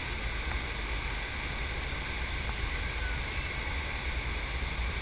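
Steady rush of pumped water streaming over a FlowRider sheet-wave machine, an even hiss over a strong low rumble.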